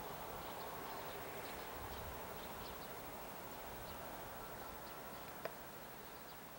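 Faint outdoor ambience: a distant electric train running away along the track, its low rumble slowly fading, with small birds chirping throughout. A single short click comes about five and a half seconds in.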